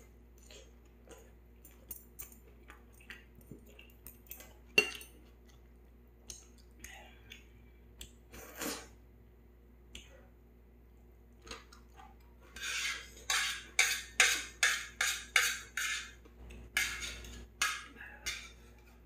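Metal chopsticks clicking and scraping on a metal pot lid used as a plate. There are scattered light clicks and one sharp clack about five seconds in, then a quick run of louder rasping sounds, two or three a second, in the last third.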